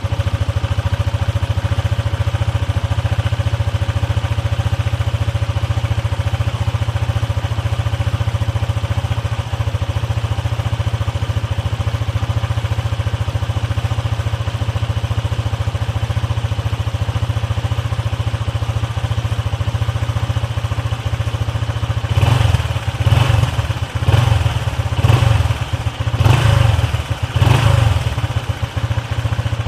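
Honda ADV150 scooter's 149cc single-cylinder four-stroke engine idling steadily through its stock exhaust. Near the end it is given a series of short throttle blips, about one a second.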